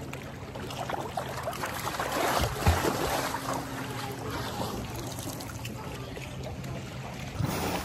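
Pool water sloshing and splashing as an African elephant moves and swings its trunk through it, with a heavier splash about two and a half seconds in. A low steady hum runs underneath.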